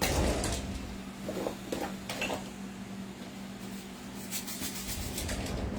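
Kitchen items being handled: scattered light clinks and knocks of containers and dishes, with a clatter right at the start, over a steady low hum.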